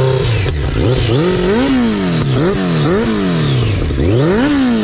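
Kawasaki Z900 inline-four engine through a Scorpion full-system aftermarket exhaust, revved up and dropped back about four times in quick succession. The last rev falls away slowly near the end.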